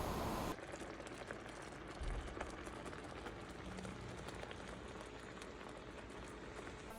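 Rain falling: a steady hiss with many scattered drip ticks, after a louder noise that cuts off about half a second in.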